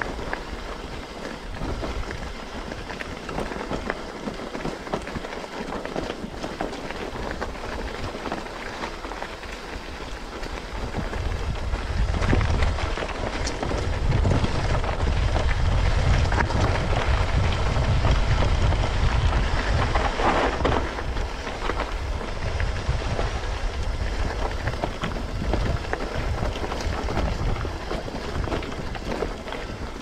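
Mountain bike rolling over a loose, stony dirt track: tyres crunching over gravel and flat stones, with many small rattles and knocks from the bike. About 11 seconds in it gets louder, with a low rumble of wind on the microphone.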